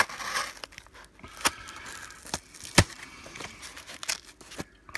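Cardboard box being cut and torn open with a pocketknife: scratchy ripping at the start, then several sharp clicks and snaps, the loudest about three seconds in.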